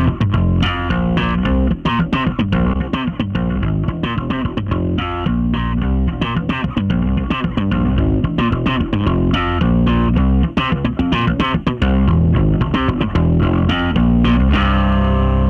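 Electric bass guitar playing a busy line of short plucked notes, processed through the Bassment bass plugin; about a second before the end it settles on one held note.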